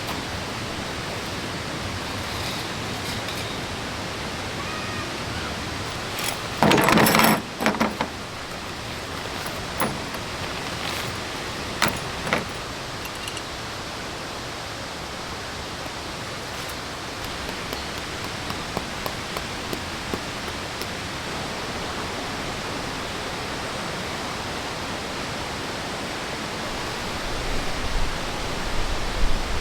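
Steady rushing of a waterfall and stream. About a third of the way in there is a loud clatter lasting about a second, and a few sharp clicks follow shortly after.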